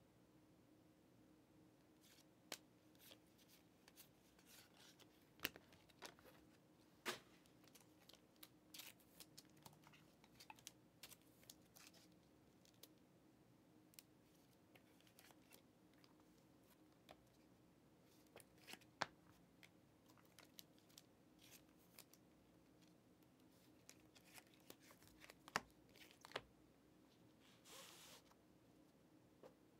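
Football trading cards being flipped one by one through a stack held in the hands, making a scatter of faint clicks and snaps with a few sharper ones. Near the end there is a short sliding rustle as the stack is set down on the table.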